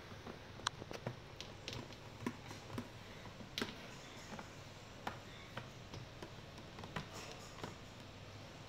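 Cocker spaniel puppy mouthing and nudging a plastic tub on a tile floor: faint, irregular light taps and clicks of teeth and plastic, busier in the first half and sparser near the end.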